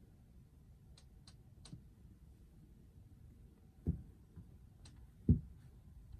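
Quiet room tone broken by a few light clicks early on, then two dull knocks, the second the louder, near the end.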